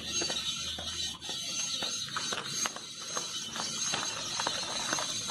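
Front passenger-side wheel of a Maruti Suzuki Swift making a repeated clicking and scraping as it turns. The cause is a small stone caught inside the wheel, rubbing against the brake's metal backing plate.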